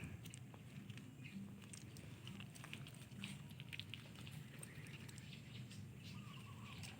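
Dogs' paws and claws pattering and scuffling faintly on a floor: scattered light clicks over a low steady hum.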